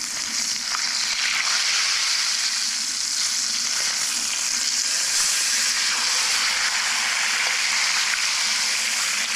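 A one-pound ribeye sizzling steadily in butter in a stainless steel skillet, near the end of its sear.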